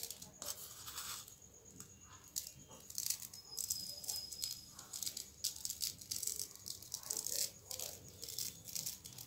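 Iron filings being sprinkled by hand onto a sheet of paper and picked from a small plastic cup, giving faint, irregular rattling and pattering.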